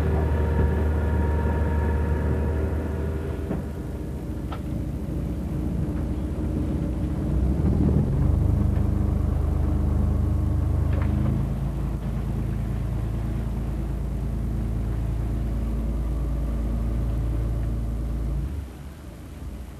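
A diesel engine running steadily with a low hum. It changes pitch and load about eight seconds in and again about eleven seconds in, then cuts off near the end.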